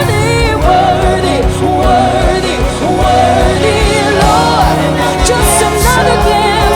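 Live worship band playing a slow contemporary Christian song, with a steady kick-drum beat under sustained chords and a singer's voice holding and bending notes between lyric lines.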